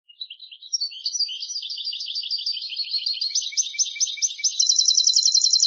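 European goldfinch singing: a rapid run of high twittering notes that quickens into a louder, fast trill near the end.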